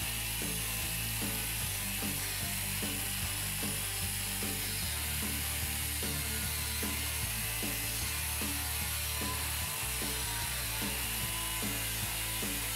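Background music with a steady beat and a bass line that changes every few seconds.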